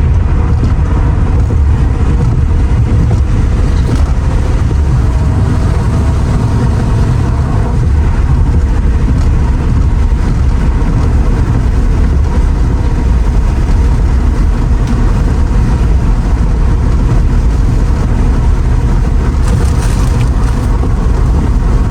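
Steady wind and road noise inside a Mercedes-Benz R129 SL500 cruising at highway speed with the driver's window down: a heavy, even low rumble.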